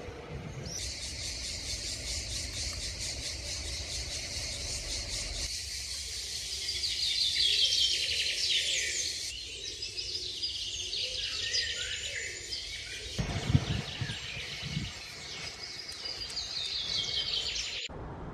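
Birds chirping and singing over a steady high chorus of insects. The sound cuts in about a second in and stops abruptly near the end.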